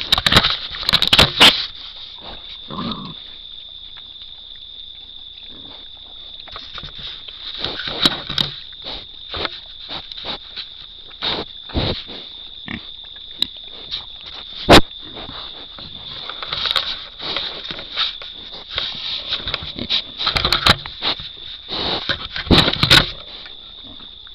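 Feral hogs nosing and rubbing against a trail camera, making irregular knocks and scrapes on the housing right at the microphone, with occasional hog grunts.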